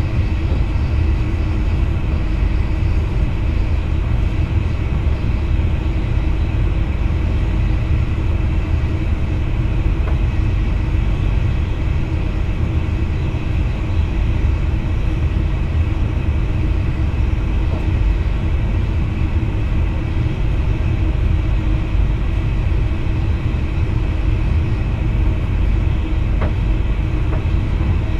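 Steady cab noise of an NS VIRM double-deck electric train under way: a constant low rumble from the running gear with a steady hum over it.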